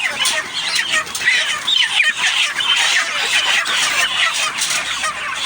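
A flock of 35-day-old farm chickens making a dense, continuous chorus of many overlapping chirps and clucks.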